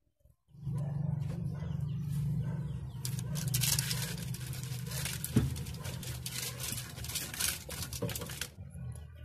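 Gloved hands loosening a hose clamp and working a rubber intake hose off a diesel engine's air-inlet pipe. Crackly rubbing and scraping of rubber and metal starts about three seconds in, with a sharp click at about five seconds, over a steady low hum.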